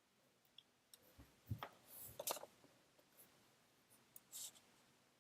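Near silence with a few faint, scattered clicks and taps from a computer keyboard and mouse, the clearest about a second and a half and two seconds in.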